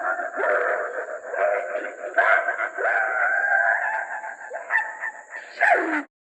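A cartoon character's voice wailing and moaning without words, its pitch sliding up and down in short broken cries, then cutting off suddenly near the end.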